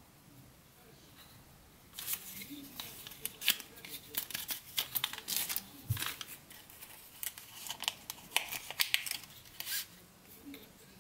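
Thin clear plastic packaging crinkling and rustling as it is handled, in quick irregular crackles starting about two seconds in and stopping shortly before the end.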